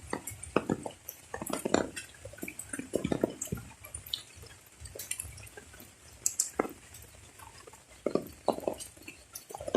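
Rain dripping: irregular, scattered drops making sharp taps and plinks of varying strength.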